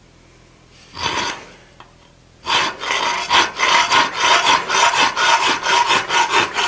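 Hand file scraping across a forged metal cabinet handle clamped in a vise, cutting a decorative line. One stroke comes about a second in, then quick, short, repeated strokes from about two and a half seconds in.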